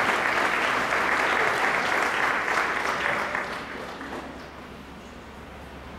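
Audience applauding, dying away after about three and a half seconds.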